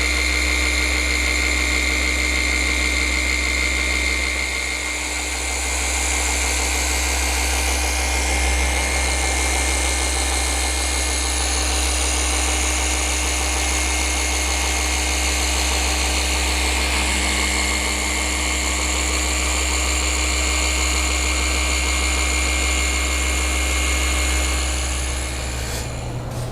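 Flex forced-rotation polisher running steadily with a steady high tone. It eases briefly about five seconds in and stops just before the end.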